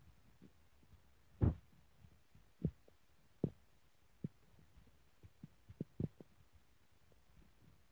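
Soft, irregular low thumps and taps, about a dozen of them, the loudest about a second and a half in: a baby's hand patting and handling a cardboard board book on a rug.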